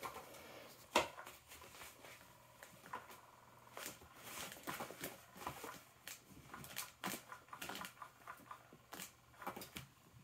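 Irregular rustling and light tapping of a motorized cat toy's nylon cover as a kitten pounces on the wand moving underneath it, with a sharp tap about a second in.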